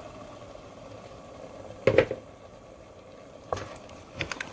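Kitchen cookware clatter: one loud knock of a utensil or lid against a cooking pot about two seconds in, then a few lighter clicks near the end.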